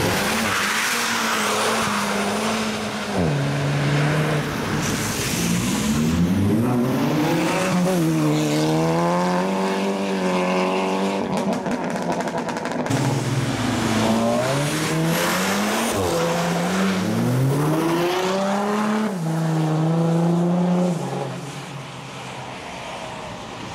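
A car engine revving hard, its pitch rising and falling again and again, with tyres spinning and squealing on the wet road as the car is driven in a burnout or donut. It gets quieter near the end as the car pulls away.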